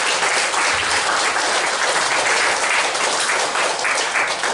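An audience applauding steadily, many hands clapping at once, fading away just after the end.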